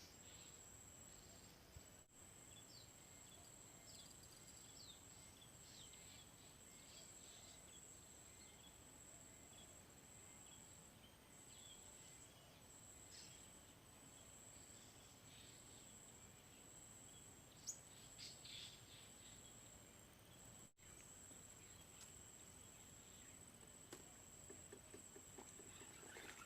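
Near silence: faint outdoor ambience with a steady high-pitched insect-like whine and scattered faint chirps of insects or birds.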